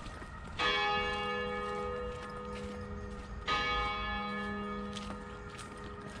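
Church bell tolling: two strikes about three seconds apart, each ringing on and slowly fading.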